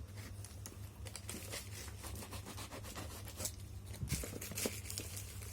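Packaging being opened by hand: irregular tearing and crinkling of the box's wrapping.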